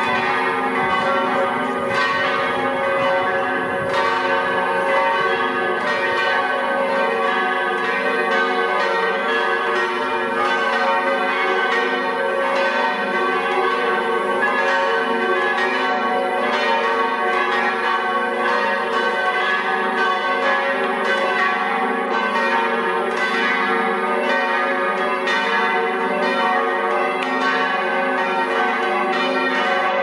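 Several large swinging church bells ringing together in a peal, a dense, steady stream of overlapping strikes over many sustained, ringing tones.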